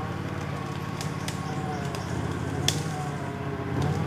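A motor vehicle engine running steadily at an even pitch, with a few sharp clicks over it; the loudest click comes a little under three seconds in.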